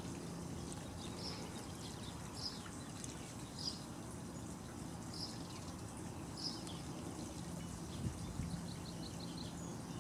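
A bird calling, a short high chirp repeated about once a second, then a quick run of five or six notes near the end, over steady outdoor background noise.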